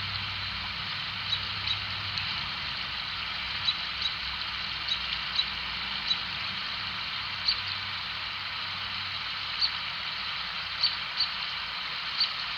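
Campfire popping: short sharp snaps at irregular intervals, about fifteen in all, over a steady hiss.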